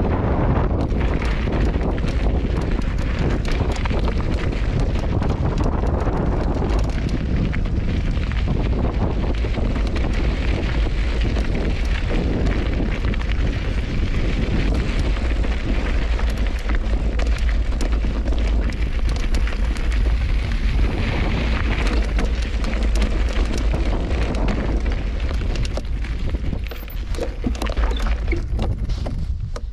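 Wind buffeting the action camera's microphone as a mountain bike rolls down rocky desert trail, with the knobby tyres crunching over loose gravel and the bike rattling continuously.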